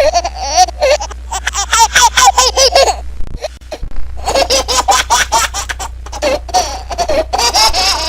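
Baby laughing in quick runs of high-pitched, bubbling laughs, breaking off briefly about three seconds in and then laughing again.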